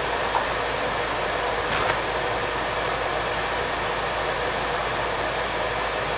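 Steady whooshing hiss of a running fan, with a faint click near the start and a brief louder rustle about two seconds in.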